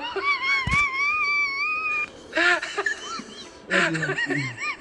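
A high-pitched, wavering whine from a person's voice, held for about two seconds, followed by shorter whimpering sounds and a lower voice near the end.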